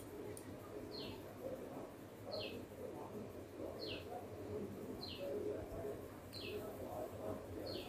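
A small bird repeating a short, high call that falls in pitch, six times at an even pace, over faint background noise.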